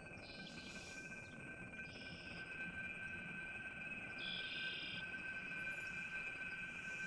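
Battery-powered improvised music: two steady high tones held throughout, with short higher notes entering about a second in, near two seconds and again around four seconds in, over a low even background hiss.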